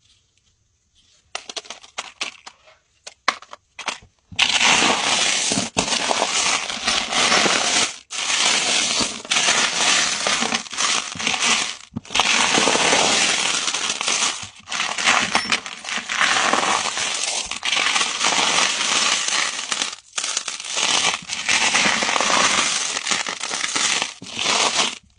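Hands stirring and scooping a pile of tumbled crystal stones mixed with holographic foil pouches: the stones clatter and clink against one another and the foil crinkles. A few scattered clicks come first, then from about four seconds in a dense, continuous clatter with brief pauses.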